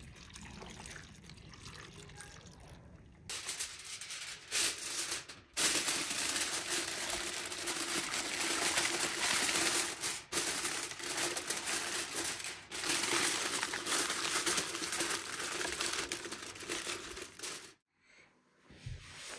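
Water trickling into a cauldron of sliced onions, faint, for the first few seconds; then aluminium foil crinkling loudly and steadily as it is wrapped and pressed around the pot, with a few brief breaks, until it cuts off abruptly near the end.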